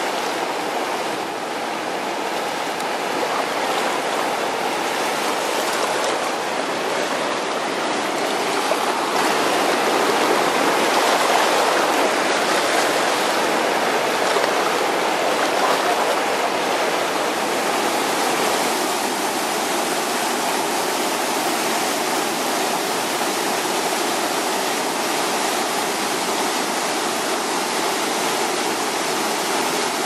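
Spring-swollen river water rushing over a waterfall and white-water rapids, a steady, loud rush that swells a little in the middle.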